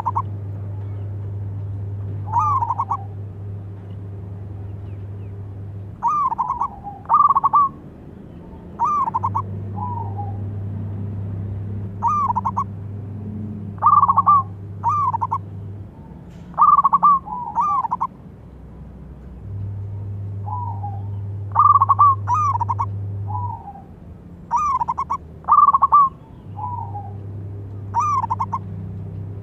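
Zebra dove cooing: repeated phrases of quick, rolling coos, one every second or two, some softer and lower-pitched. A low steady hum comes and goes in the background.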